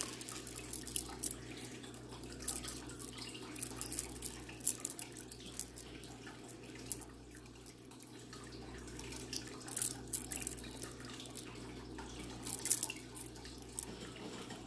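Irregular light clicks and clinks of small jewelry pieces (rings, earrings, bracelets) knocking together as they are rummaged through and handled, over a steady low hum.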